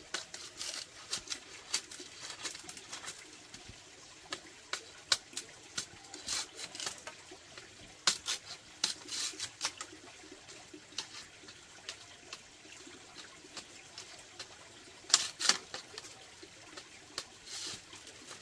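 Irregular light clicks and taps, some in quick clusters, with a faint watery trickle beneath.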